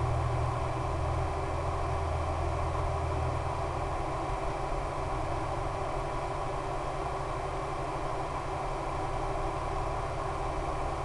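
Steady electrical hum and hiss with no distinct events, the noise of the analog FPV video link's audio channel. The plane's electric motor is not running.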